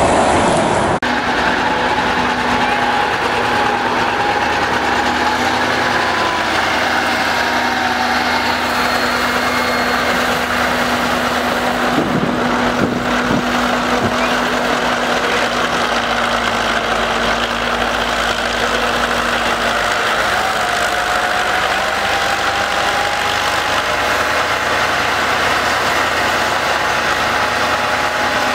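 Vintage Magirus-Deutz tipper truck's air-cooled Deutz diesel engine running steadily at low revs, with a faint whine that rises slightly in pitch about two-thirds of the way through. About a second in, this sound cuts in, replacing a passing truck.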